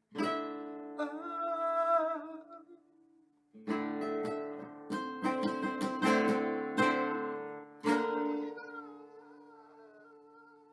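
Acoustic guitar strummed: one chord struck at the start and left to ring, a short pause about three seconds in, then a run of quick strummed chords. A man sings along, holding a long wavering note over the fading chord near the end.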